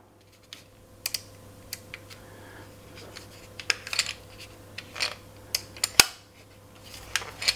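Canon EOS 630 35mm film camera being fired again and again to run through the roll's exposures: a series of sharp shutter clicks, each with a short mechanical snap of the film advancing, at irregular intervals about half a second to a second apart.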